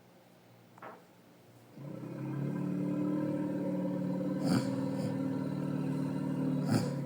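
Sound effect for an imagined ox-elephant creature: one long, low call held at a steady pitch for about five seconds, starting about two seconds in, with two sharp clicks partway through.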